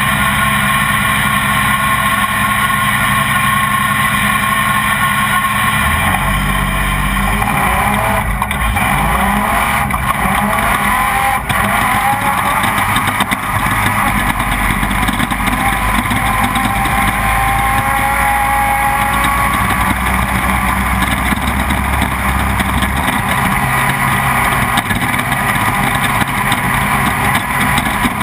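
Off-road race vehicle's engine heard on board, running steadily, then rising in pitch as it accelerates from about six seconds in, over a steady rushing noise.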